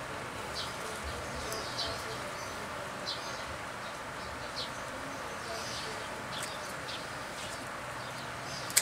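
Steady hum of an electric stand fan, with faint light ticks of bonsai wire being wound around a ficus branch by hand. Just before the end comes one sharp snip of pruning shears cutting the branch back.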